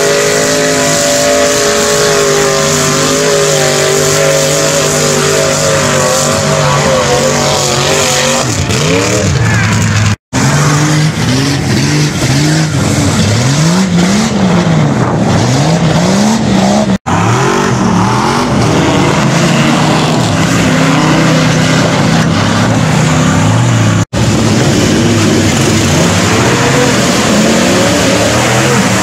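Off-road trucks' engines running hard in mud, clip after clip. First a Suzuki Samurai's engine is held at steady high revs while its tyres churn. Then a Chevrolet pickup's engine rises and falls in repeated swells as the truck spins its tyres on a mud mound. Brief dropouts at the cuts between clips.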